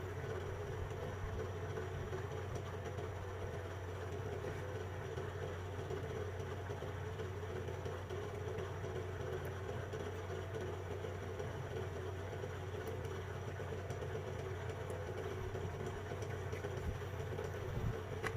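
A steady low mechanical hum, unchanging throughout, with no distinct clicks or knocks.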